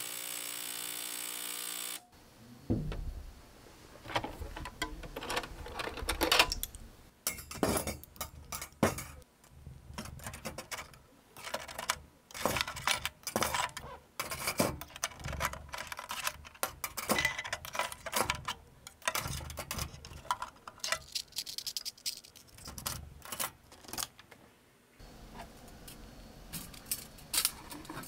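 A small appliance's steady hum stops about two seconds in as its countdown runs out. Then metal nail tools clink and rattle irregularly in a perforated steel basket as it is handled. A low steady machine hum starts near the end.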